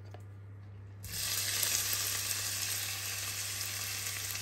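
Chopped red onion hitting hot olive oil in a stainless steel pan, with a sudden start to sizzling about a second in. The frying sizzle then carries on steadily.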